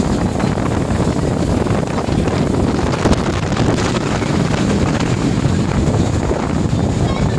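Steady wind noise on the microphone aboard a moving passenger ferry, with the boat's engine and water noise beneath.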